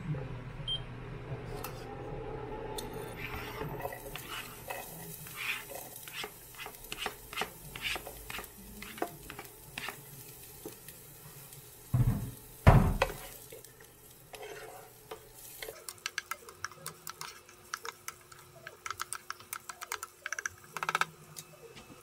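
Chopped onion and garlic sizzling in hot canola oil in a nonstick pot, with frequent clicks and scrapes of a utensil stirring against the pan. A couple of loud knocks come about halfway through.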